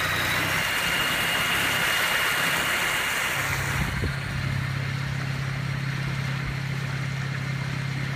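Torqeedo 1003S electric outboard running under way, with a faint high whine over the rush of its wake. About three seconds in the rushing dies down and a steady low hum carries on.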